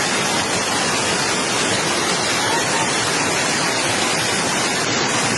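Floodwater rushing and cascading down like a small waterfall, a loud steady rush of water.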